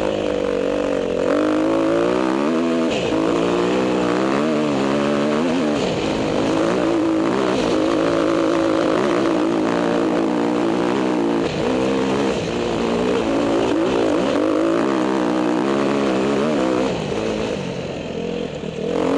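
Off-road motorcycle engine revving up and down as the rider works the throttle on a rough trail climb, the pitch rising and falling every second or two; the throttle eases off briefly near the end.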